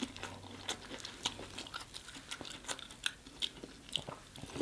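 Biting and chewing corn on the cob coated in seafood-boil sauce: a run of irregular crunches and mouth clicks as kernels are torn off the cob.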